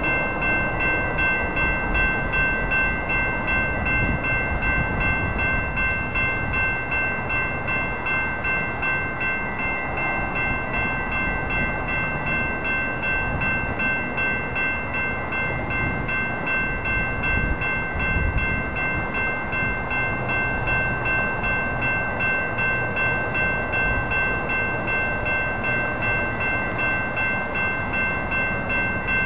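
Railroad crossing warning bell ringing with a rapid, even, unbroken series of dings while the crossing is active: the signal that a light rail train is approaching and the gates are down.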